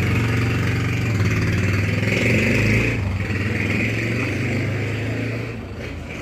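Honda TMX125 Alpha's small single-cylinder four-stroke engine running steadily, test-run after a repair for hard starting and stalling, a little louder about two to three seconds in and easing slightly near the end.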